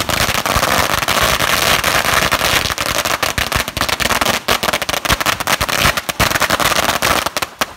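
Fireworks crackling: a dense, continuous run of rapid sharp cracks over a loud hiss, thinning out near the end.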